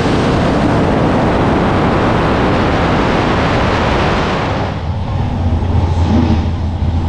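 Pickup truck's engine at full throttle, a loud roar as it launches down a drag strip, cut off suddenly about two-thirds of the way through. It gives way to a quieter, steady low rumble from another drag car's engine at the starting line.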